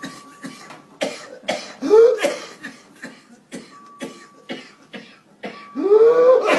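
Runs of short, rapid coughs, each run twice ending in a drawn-in breath that rises in pitch. This is the paroxysmal cough with inspiratory whoop typical of whooping cough (pertussis).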